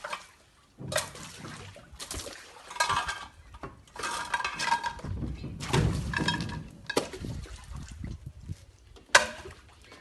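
Dishes clattering and clinking as they are piled in: a series of knocks, several with short ringing clinks, and one sharp knock near the end.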